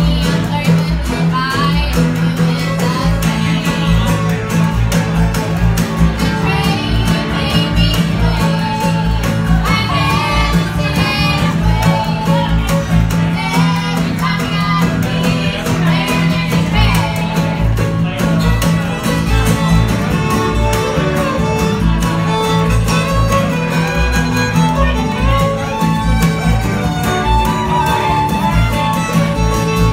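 Live bluegrass string band playing: fiddle, mandolin, acoustic guitar and upright bass, with the fiddle taking the lead in an instrumental break over a steady upright bass line.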